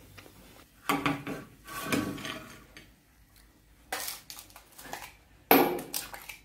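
Metal tongs clattering and scraping in a frying pan as fried nuggets and fries are lifted onto a glass plate. Later come separate knocks and rattles from a plastic ice cube tray being handled, the loudest a little over five seconds in.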